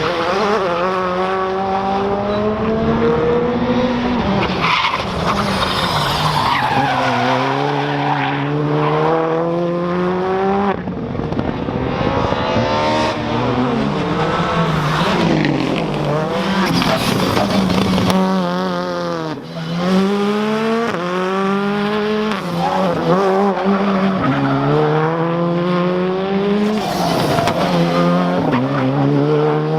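Skoda Fabia R5 rally car's 1.6-litre turbocharged engine revving hard. The pitch climbs and drops again and again through the gears, with a brief lift-off about two-thirds of the way through.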